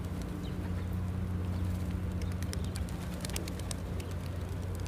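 A flock of feral pigeons cooing, with scattered sharp clicks, over a steady low hum.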